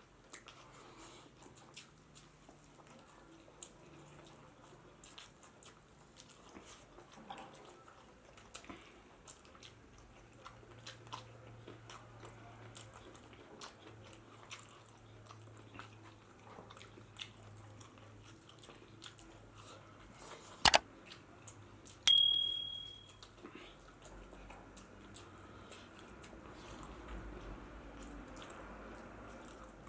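Close-miked eating: a person chewing and biting pork biryani and rice, with many small wet clicks and smacks. About 21 seconds in come two sharp knocks, the loudest sounds; the second rings with a high tone that fades over about a second.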